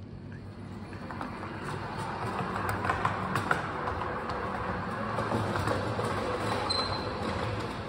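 Large-scale model train, an electric locomotive hauling a metal serving wagon, running along metal rails: a steady rolling rumble that swells about a second in, with a couple of sharp clicks near the middle.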